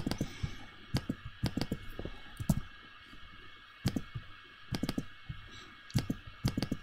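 Computer mouse clicks and keyboard key presses, coming in short clusters every half second to a second as text is selected and a font is chosen, over a faint steady hiss.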